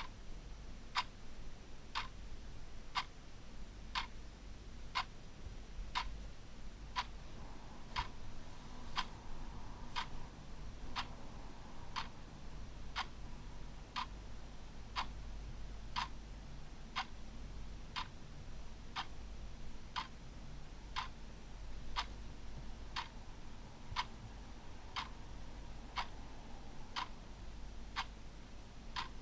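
Clock ticking steadily, one tick a second, over a faint low hum.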